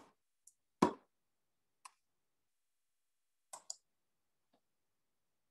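Computer mouse clicking: two sharp clicks about a second apart, then a few fainter scattered clicks, with a quick double click about three and a half seconds in.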